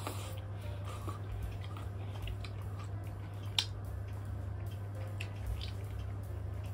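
Two people eating with chopsticks from ceramic bowls: quiet chewing and small clicks of tableware, with one sharper click about three and a half seconds in. A steady low hum runs underneath.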